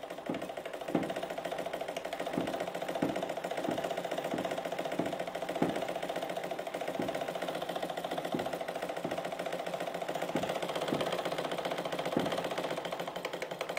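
A steady, rapid mechanical-sounding buzz, like a small motor or sewing machine, with a low thump about every two-thirds of a second.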